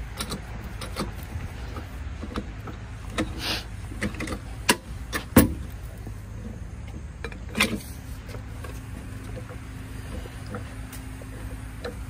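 A handful of sharp knocks and clanks, the loudest about halfway through, as a floor jack and lug wrench are handled during a tire change, over a steady low rumble. A steady low hum joins about two-thirds of the way through.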